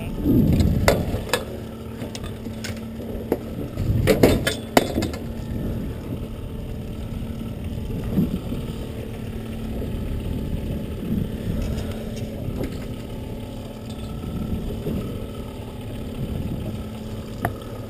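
Boat motor idling with a steady low hum, under scattered clicks and knocks of fishing tackle being handled. The knocks are loudest about a second in and again around four seconds in.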